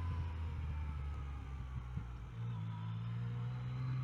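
Yamaha XSR900's three-cylinder engine running under way; its note steps up in pitch about two seconds in.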